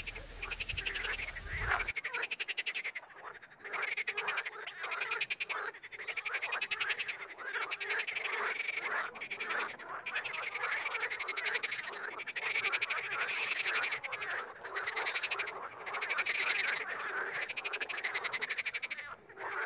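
Frogs croaking: rapid, rattling croaks in bouts of about a second, one after another with short gaps.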